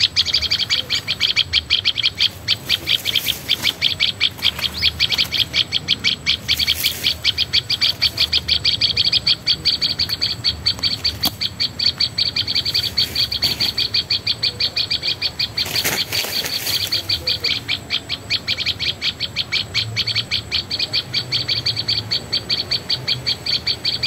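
Recorded bird call played from a small MP3 player as a lure for bird-liming: a fast, even string of high chirps, about five a second, repeated without a break.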